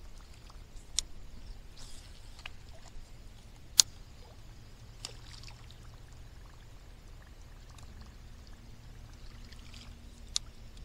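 Water gurgling and splashing faintly a few times, with several sharp clicks, the loudest about four seconds in.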